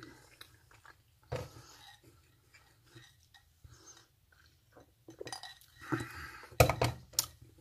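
Mealtime handling sounds: light clinks of a glass and utensils against a stainless-steel mess tray, with chewing, then two sharp knocks near the end as the glass is set back down on the tray.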